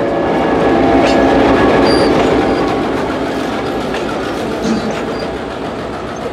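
Train passing close by, its wheels clacking over the rail joints; the sound is loudest about one to two seconds in, then slowly fades as the train moves away.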